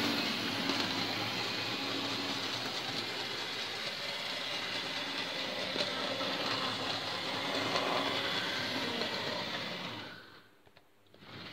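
Hornby OO-gauge model trains running on the layout: the motor whirring and the wheels and wagons rattling over the track, steady until it drops away suddenly about ten seconds in.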